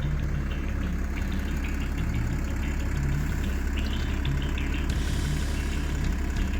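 Car engine with a failed turbocharger idling with a steady low grumble.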